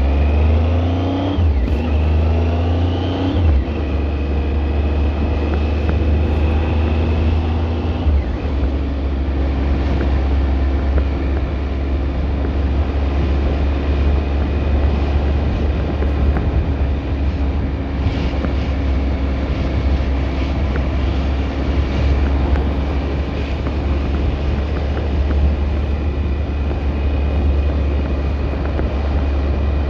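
Car being driven, with a heavy low rumble throughout. In the first few seconds several pitched tones rise and break off, as when a car accelerates through the gears; after that a steady high whine holds with the running noise.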